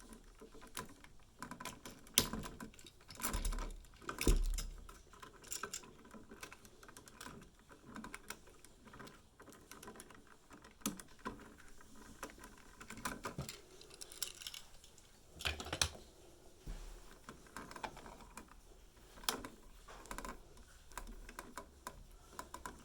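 Irregular small clicks, taps and scrapes from handwork on an old wall light switch being taken out of its box, with a few louder knocks about two, four and fifteen seconds in.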